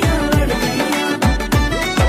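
Upbeat dance music with a steady drum beat. Its low drum strokes slide down in pitch, several a second.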